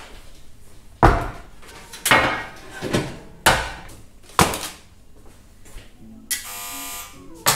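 A metal baking tray and zucchini being set down on a wooden worktop: five knocks and clatters spread over the first four and a half seconds. A short buzzing tone lasting under a second follows near the end, then one more knock.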